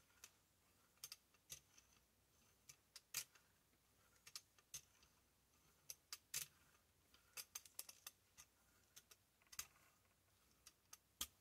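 Faint, irregular clicks and ticks from a large brayer being rolled back and forth through acrylic paint on a gelli plate.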